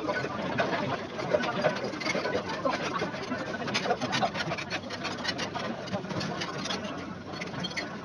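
Sped-up restaurant sound of someone eating: a fast, garbled jumble of background chatter with many quick clicks of a fork on a plate.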